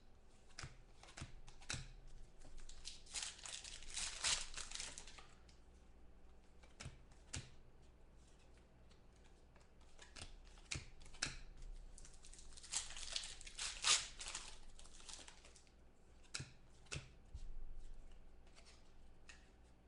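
Trading cards and their plastic and foil packaging being handled: rustling and crinkling with scattered light taps and clicks, with two longer spells of crinkling about three seconds in and near the middle.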